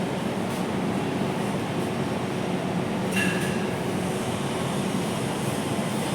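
Steady mechanical noise with a short beep about three seconds in.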